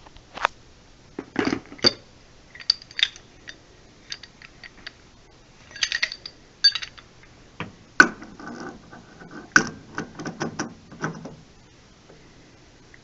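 Pipe wrench working a new brass pressure relief valve into a water heater tank: irregular metallic clicks, clanks and short scrapes as the jaws bite, slip and are reset on the valve body.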